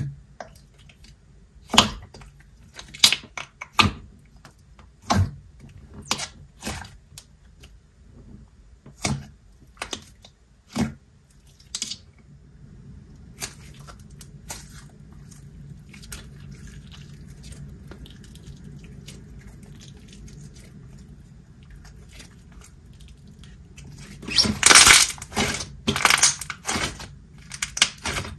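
Thick, glossy slime being poked and squeezed by hand, giving sharp wet pops and clicks at irregular intervals. Near the end comes a quick run of louder crackling pops as the slime is pressed flat against the table.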